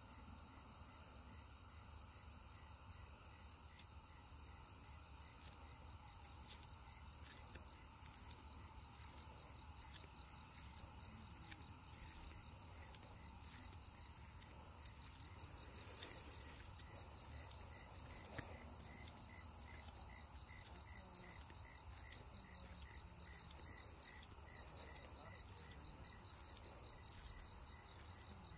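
Faint night insects chirping in quick, even pulses, over a steady hiss.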